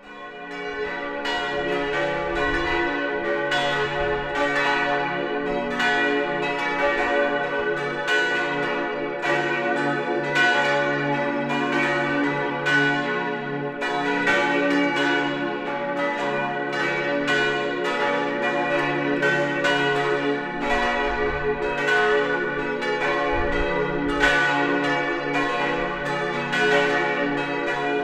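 Full peal of a parish church's swinging bronze bells ringing together, their strokes overlapping continuously. The main bells are tuned d', f♯', a', b', cast by Colbacchini in 1928 and Grassmayr in 1955–57. The sound rises from silence within the first second.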